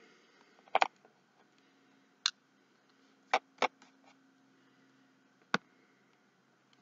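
Light, sharp clicks and taps, about six at irregular intervals, as small moulded embellishments are set down and pressed onto a card on a cutting mat, fingertips tapping them into place.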